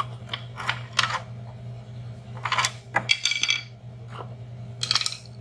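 Metal-on-metal clinks and knocks as a pry bar works a 4L60E transmission's oil pump loose in its case and the pump is lifted out by hand, with a short ringing clink about three seconds in. A steady low hum runs underneath.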